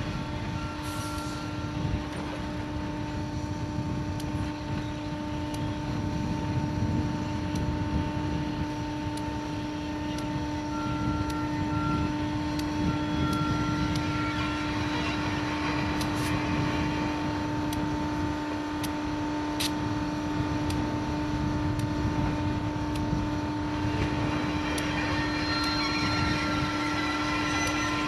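Diesel locomotive rolling slowly past close by, its engine running with a steady drone, with scattered sharp ticks.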